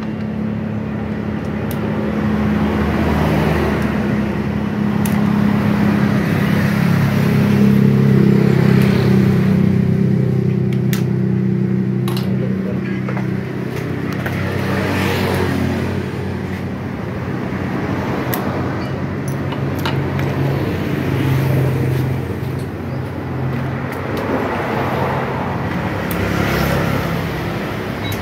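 A steady, loud motor drone with slow swells, and a few sharp metal clinks of hand tools on a motorcycle engine being taken apart.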